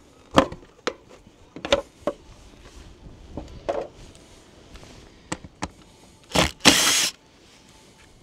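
Scattered clicks and knocks as the side panel of a 1988 Honda Transalp XL600V is taken off to get at the air filter, with a short scraping rush near the end, the loudest sound.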